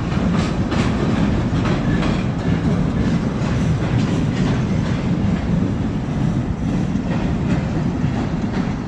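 A long train rolling past: steel wheels clacking over the rail joints above a steady rumble.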